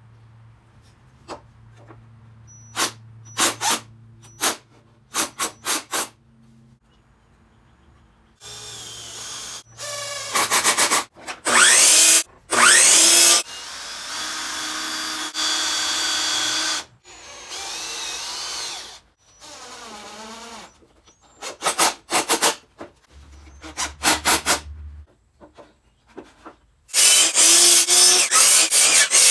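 Hitachi cordless impact driver driving screws into spruce 2x2 framing, in short trigger bursts and then several runs of a few seconds each whose pitch climbs and falls. Near the end a Hitachi miter saw starts up and cuts through a 2x2.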